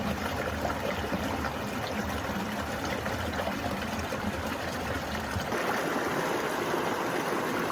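Small mountain creek running and trickling over rocks, a steady wash of water; about five and a half seconds in the low rumble drops away and the water sounds brighter.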